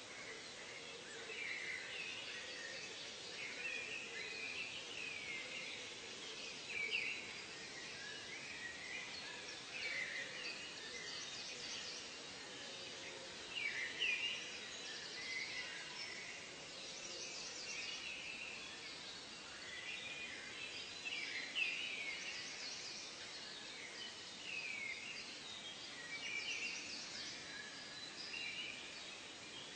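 A chorus of many birds chirping and calling at once: short, quick notes that rise and fall, overlapping continuously over a faint steady hiss.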